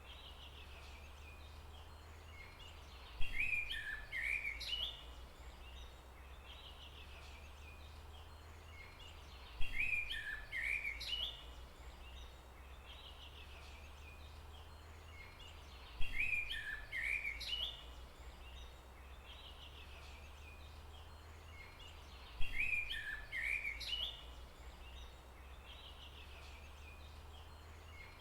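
A songbird singing a short phrase of quick chirping notes, about a second and a half long, repeated four times at even intervals of roughly six seconds. A steady low hum runs underneath.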